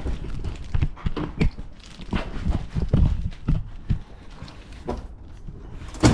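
Irregular knocks and clicks of handling and moving about, with one sharper click about six seconds in.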